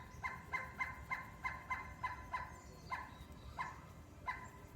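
Black colored pencil shading back and forth on paper, each stroke giving a short squeak, about three a second, then slower and sparser in the second half.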